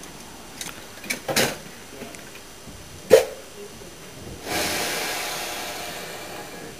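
A few light metallic clicks and one sharp clank from work on a small narrow-gauge steam locomotive. Then a hiss of steam starts suddenly and slowly dies away.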